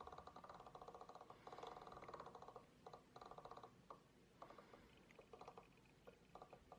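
Faint, fast ticking of the Casio CT-S300 keyboard's rotary dial being turned to scroll through its tones, in several short spurts with pauses between them.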